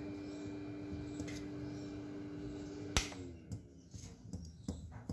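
Hot air rework station blowing steadily, with a steady hum and hiss while it heats a phone motherboard chip to reflow it. About three seconds in it is switched off with a sharp click and its hum drops in pitch as the blower winds down, then a few light taps of metal tweezers on the board follow.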